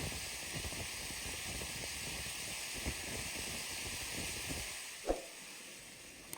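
Steady hiss with scattered faint taps and one louder knock about five seconds in, fading slightly near the end.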